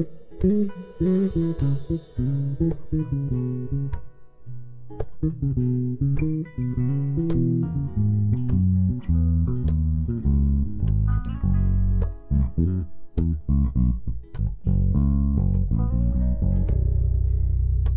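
Live band playing an instrumental passage: bass guitar, acoustic and electric guitars and drums, with no singing. The bass comes forward in the second half and holds long low notes for the last few seconds.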